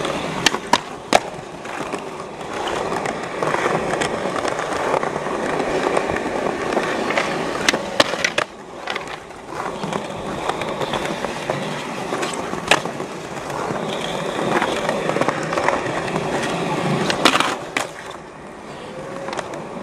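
Skateboard wheels rolling steadily over smooth concrete, broken several times by sharp clacks of the board being popped and landed in flatground tricks.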